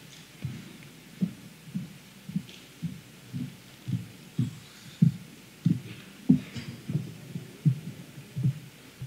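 Footsteps on a stage floor, picked up by the podium microphones as a string of dull low thuds, about two a second.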